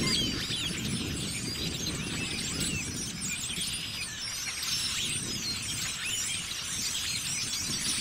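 Dense chorus of a huge flock of blackbirds: many short squeaky calls and chatter overlapping without a break, over a steady low rushing noise.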